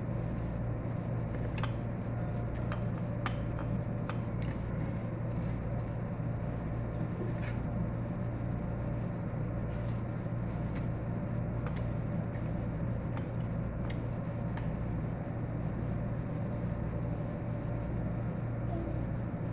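Steady low hum of a running fan, with a lower throb that pulses a little faster than once a second. A few soft clicks and taps of a knife against a plate as watermelon is cut.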